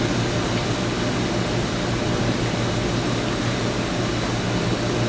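Steady hum and hiss of a running ventilation fan, constant throughout with no separate events.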